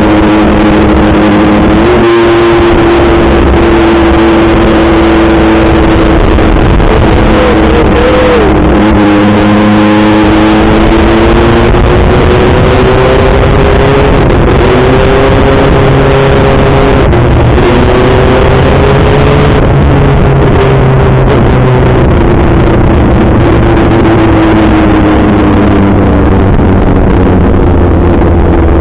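Kawasaki ZX-6R 636 inline-four engine running loud and steady under way, its pitch drifting gently up and down with the throttle, with a brief rise about two seconds in and a dip around ten seconds. A dense rushing noise lies underneath the engine note.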